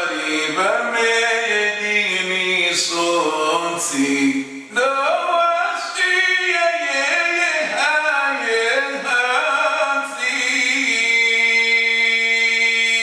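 A man chanting a poem in Comorian, unaccompanied, his voice sliding in pitch within each line. He breaks briefly about five seconds in and ends on a long held note.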